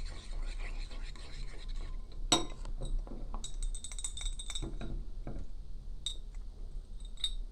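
A spoon stirring a glue and borax-water mix in a bowl, scraping and clinking against the bowl, with a sharp clink a little over two seconds in and a brief ringing clink around the middle.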